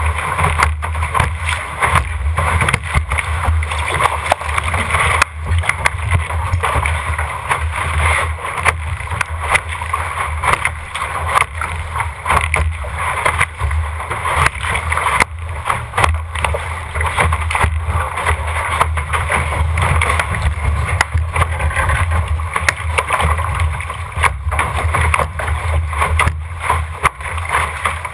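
Water rushing and splashing along the hull of an RS600 sailing dinghy sailing hard through chop and throwing spray, with a steady low wind rumble on the microphone.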